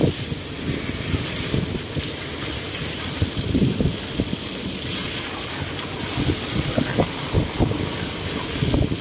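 Wind buffeting the microphone: an uneven low rumble with irregular gusts.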